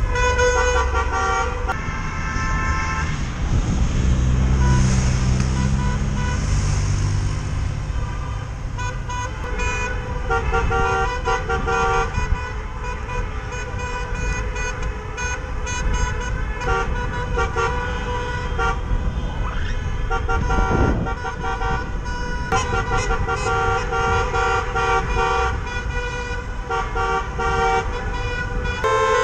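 Many car horns from a car convoy honking on and off in protest, several pitches overlapping, over steady engine and road noise.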